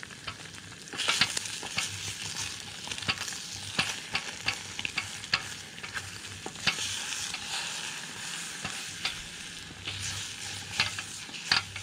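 Eggs sizzling in a small aluminum frying pan as they are stirred and scrambled with a plastic spatula, with many short scraping clicks of the spatula against the pan over a steady frying hiss.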